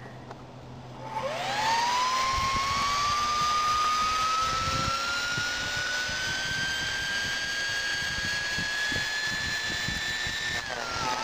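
Small brushed DC motor being over-volted from a rectified Variac supply: a whine that starts about a second in, climbs quickly, then keeps rising slowly over a hiss and crackle as the brushes spark at the commutator. Near the end the pitch drops.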